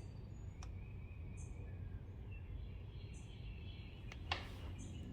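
Quiet background hum with faint bird chirps every second or two, and a single sharp click about four seconds in.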